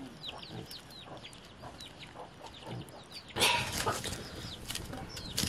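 Chickens peeping and clucking, with many short high falling chirps. About two-thirds of the way in, a loud rush of noise as the wood fire is stirred up and sparks fly, then a sharp crack near the end.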